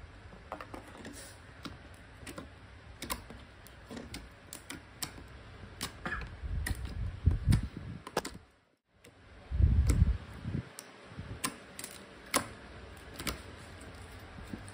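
Purple glitter slime being kneaded and squeezed by hand on a tabletop, giving scattered small clicks and pops, with a few dull thumps from handling. The sound drops out for a moment just before the middle.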